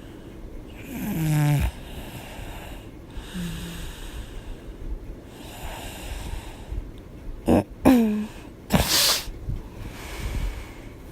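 A woman snoring in her sleep. There is a loud pitched snore about a second in, a faint one near three seconds, then two short sharp snores and a loud noisy breath out near the end.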